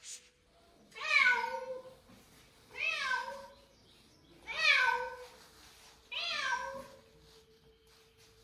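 Domestic cat meowing four times, each a long drawn-out meow that rises then falls in pitch, about one and a half to two seconds apart.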